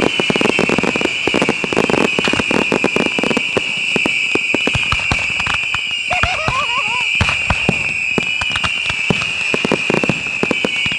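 Consumer fireworks going off in a dense, continuous barrage of bangs and crackles, with a steady high-pitched whine running underneath.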